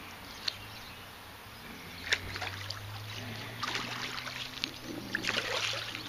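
Water splashing and sloshing as a hooked channel catfish thrashes at the surface and is scooped into a landing net. Two sharp clicks come about half a second and two seconds in, and the splashing grows busiest over the last two and a half seconds.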